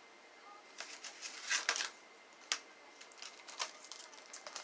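Candy packaging crinkling and rustling in the hands in a run of irregular crackles and clicks, loudest about one and a half to two seconds in.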